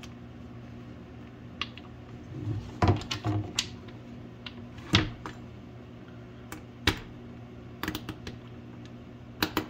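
Scattered clicks and knocks of small hardware being handled on a workbench: a bolt, spacer and push nut being fitted through a plastic skid plate panel. A steady low hum runs underneath.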